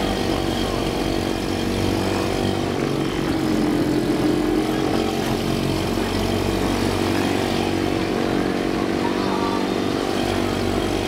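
Small outboard motors on inflatable bumper boats running steadily, a continuous engine drone.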